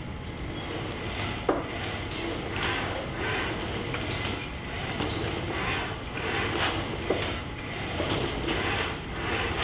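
Electric leg actuators of a 4-metre biped humanoid robot whirring in repeated surges as it sways and steps sideways, with a sharp knock about a second and a half in.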